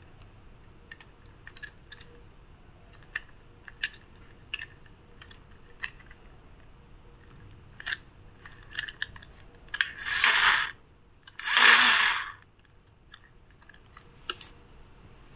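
Plastic toy monster car being handled and turned over: scattered light clicks and taps of plastic, with two louder noisy rushes about ten and twelve seconds in, each lasting under a second to about a second.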